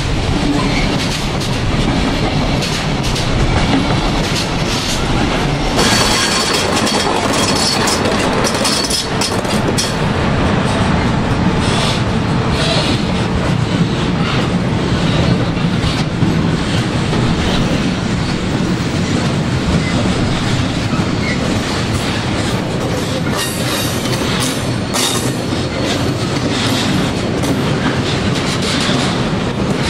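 A train rolling past at close range, with the steady rumble of its wagons and a continuous clatter of wheels knocking over rail joints.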